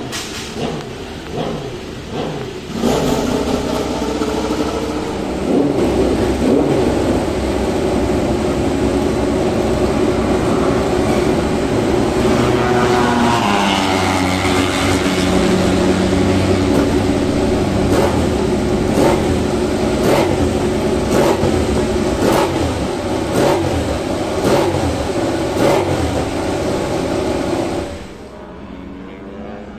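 Racing motorcycle engines running in the pit garages, revved with a string of sharp throttle blips in the second half. The sound cuts off suddenly near the end.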